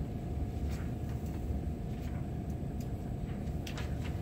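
Room noise: a steady low rumble with a faint even hum, and a few soft clicks near the end.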